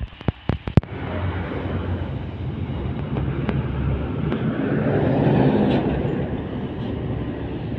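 Diesel dump truck passing close by: a low engine rumble with tyre noise that builds to its loudest about five seconds in, then eases as it goes past. A few sharp clicks in the first second.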